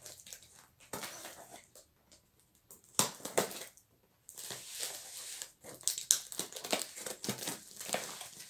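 Knife blade slitting and scraping along the packing tape on a cardboard box, in irregular scratchy strokes with crinkling tape, a sharp click about three seconds in, and busier scraping after a short pause.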